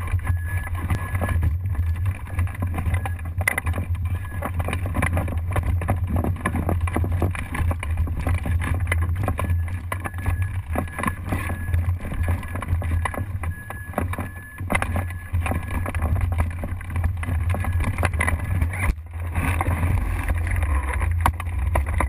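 Wind buffeting the microphone of a camera mounted on a hang glider as it lands and is run and walked across grass: a steady low rumble broken by frequent knocks and rattles from the glider's frame.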